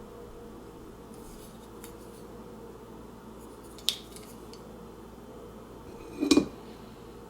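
Kitchen items being handled over a steady low hum: a few faint ticks, a sharp click about four seconds in, and a louder clunk near the end.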